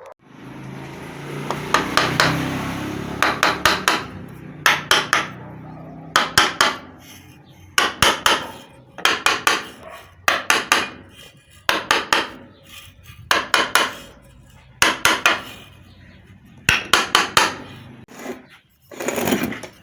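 Sharp knocks in quick bursts of three to five, about one burst every one and a half seconds, from a water pump's cover being hammered or knocked during cleaning, after a few seconds of scraping at the start.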